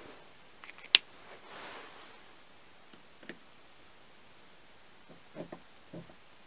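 Light handling sounds of a steel caliper on a small aluminium block: one sharp click about a second in, a brief soft scrape after it, then a few quiet taps and clicks as the jaws are set against the block to scribe a line.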